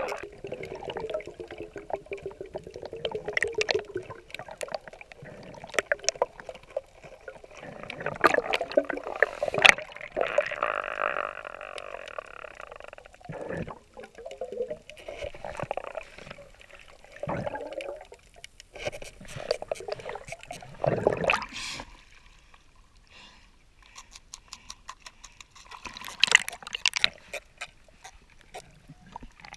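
Underwater sound of a diver at work: muffled gurgling and sloshing water with many scattered sharp clicks, quieter near the end.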